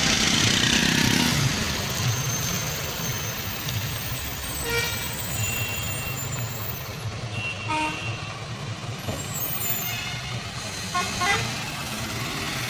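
Heavy 12-wheel lorry's diesel engine pulling slowly at low revs as it rounds a wet hairpin bend, with a hiss of tyres on the wet road at the start. Several short horn toots sound in the middle and later part.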